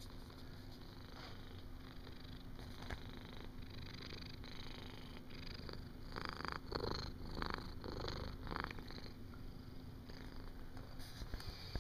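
Calico house cat purring steadily while being petted, with a few brushing noises of fur against the microphone about six to nine seconds in.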